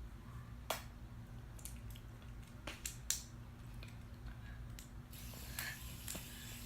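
A few sharp clicks and taps scattered over a low steady hum, the loudest about three seconds in.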